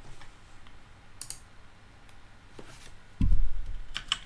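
Scattered clicks of typing on a computer keyboard, with one louder low thud a little past three seconds in.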